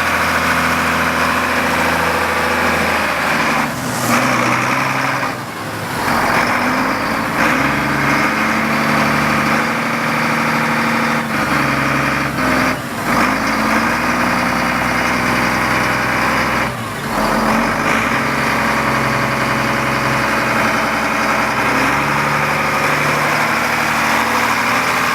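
2005 Massey Ferguson 8480 tractor's diesel engine running steadily, its low note shifting up and down in steps, with a few brief dips in level.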